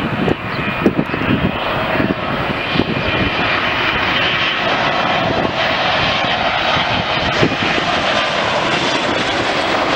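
Jet airliner engines passing close by, a loud steady rushing noise that builds over the first couple of seconds and then holds, with a faint steady whine joining about halfway through.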